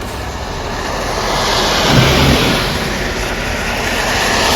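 A car passing on a wet road, its tyres hissing as it swells up and fades about two seconds in, with a second vehicle approaching near the end.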